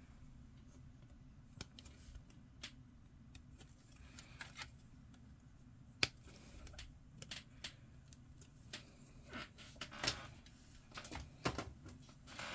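Faint scattered clicks and taps of a plastic miniature-kit sprue being handled, with a part clipped free of the frame; one sharper click about six seconds in and a run of small ticks near the end.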